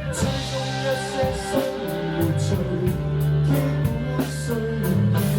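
Band playing rock music: drum kit keeping a steady beat, with a sustained bass line and guitar.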